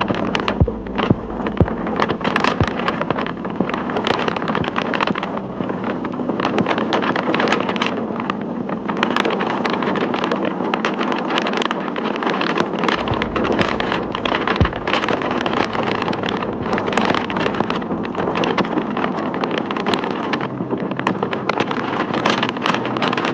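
Hurricane-force wind blasting against a phone microphone: a constant rough rushing noise broken by many sharp buffeting gusts, with wind-driven spray and rain.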